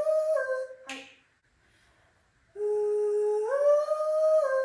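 A short melody of three held notes, a low note, a glide up to a higher one, then a step a little lower, played twice in a row with a brief gap; a sharp click sounds just before the gap.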